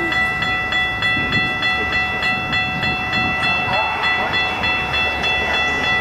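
Metra commuter train approaching cab car first, a low rumble of wheels on track. Over it, a steady, rapid ringing of a grade-crossing bell, several strokes a second.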